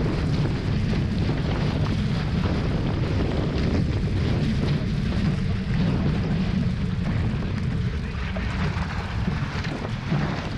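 Strong wind buffeting the onboard camera's microphone in a steady low rumble, with the hiss of water rushing past the hulls of a Hobie 16 catamaran sailing fast.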